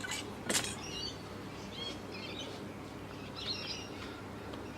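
Birds chirping in short, scattered high calls, with one sharp click about half a second in.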